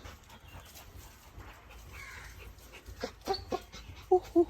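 A dog whimpering: a string of short, high whines that starts about three seconds in and gets louder near the end.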